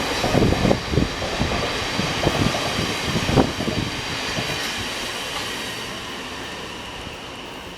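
Train running past on the rails, a rumble with irregular knocks over the first few seconds, fading steadily as it moves away.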